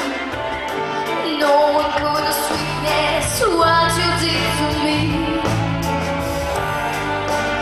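Female voice singing a pop song with instrumental accompaniment, the voice holding long notes and sliding down between them.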